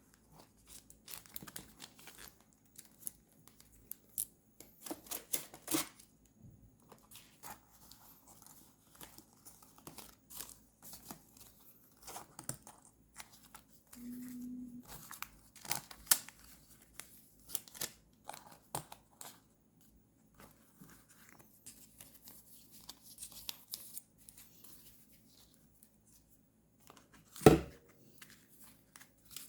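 Paper and sticker sheets being handled and torn at a desk, in short, irregular, scratchy rustles and crackles, with one loud knock near the end.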